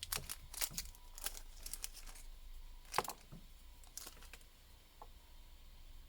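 Light clicks and taps of small plastic parts inside a smartphone being handled during a teardown, a quick run of them at first and one sharper click about three seconds in.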